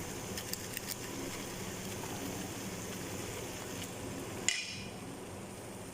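Broth boiling in a pan as rice noodles (bihon) are stirred and pushed down into it: a steady bubbling hiss with a few light clicks of the utensil in the first second. A short sharp noise comes about four and a half seconds in, and the hiss is a little quieter after it.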